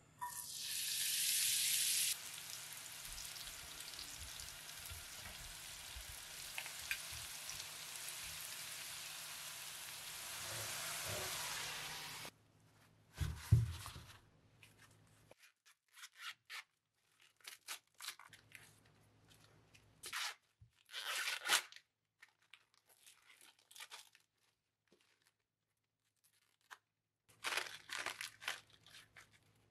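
Chopped scallions hitting hot vegetable oil: a loud sizzle for the first two seconds, settling into a steady sizzle that cuts off about twelve seconds in. A low knock follows, then corn husks rustle and tear in short bursts as they are pulled back from the ears, with the busiest tearing near the end.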